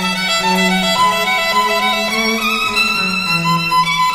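Background music: a violin playing a melody in held notes over a sustained lower line.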